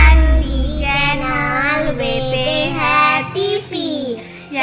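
A high-pitched voice singing a song over backing music.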